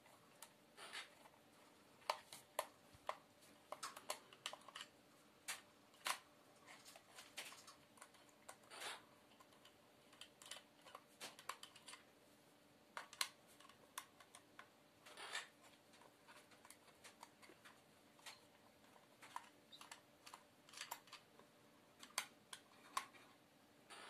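Small screwdriver turning the tiny screws in the plastic back case of an Aneng M118A multimeter, making faint, irregular clicks and scrapes.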